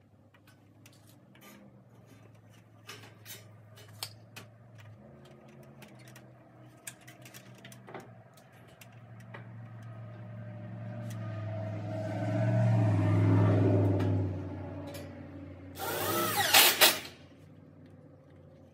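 Cordless drill running in a short burst near the end, its motor whine bending up and down. Before it, light knocks and clicks of handling wood framing, and a low hum that swells over a few seconds and fades.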